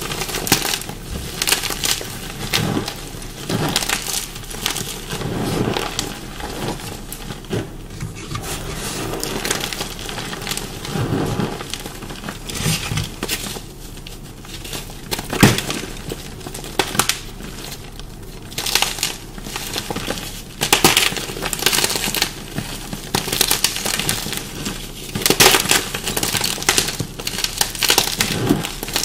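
Dyed chalk blocks crunching as they are bitten and chewed close to the microphone: a dense, irregular run of crackles and snaps with a few sharper cracks. The dyeing has made this chalk crunchy and dusty.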